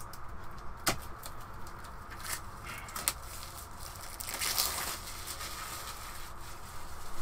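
Cardboard box and card token sheets being handled: a few light taps and clicks, then a papery rustle a little over four seconds in.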